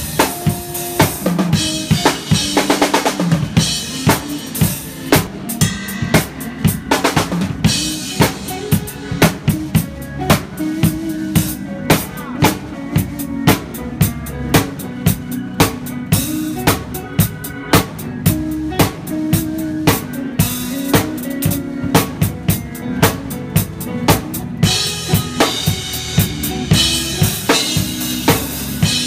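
Acoustic drum kit played live, kick, snare and cymbals keeping a steady beat of about two hits a second. Held pitched notes from other instruments sit under the drums.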